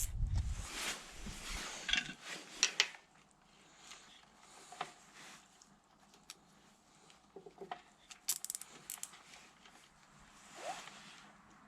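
Handling noise from tools and small parts during repair work: a rustling thump at the start, then scattered sharp clicks and light rattles, with a quick run of clicks about eight seconds in.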